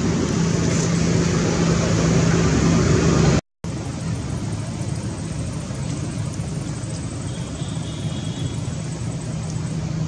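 Steady rushing noise with a low, even hum, typical of a motor vehicle running nearby. The sound cuts out for an instant about a third of the way in, then carries on a little quieter.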